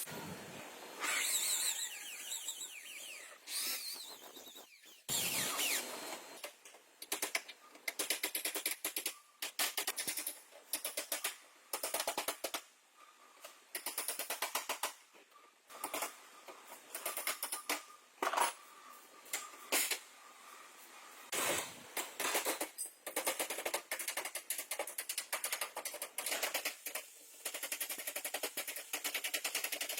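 Rapid bursts of sharp metallic tapping and clattering from bodywork on a car's damaged rear, several quick strikes at a time with short pauses between bursts.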